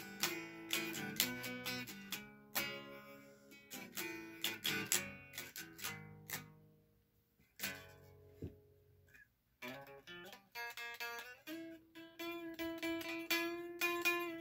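Electric guitar, SG-style, playing riffs of picked single notes and chords. There is a short pause about seven seconds in, then quick, even repeated picking from about ten seconds on.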